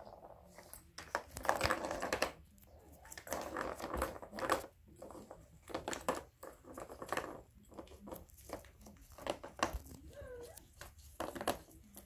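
Kittens batting a plastic ball around a circular plastic track toy: the ball rolls and rattles in the track, with irregular clicks and knocks of paws against the plastic.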